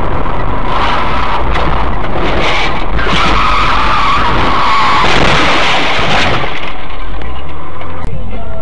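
Car tyres skidding and squealing over loud road noise; the squeal is strongest in the first half and dies away about two-thirds of the way through.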